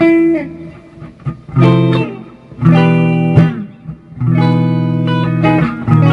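Samick Greg Bennett AV-1 electric guitar played with a clean tone: a short progression of chords, each struck and left to ring, a new chord about every one to one and a half seconds.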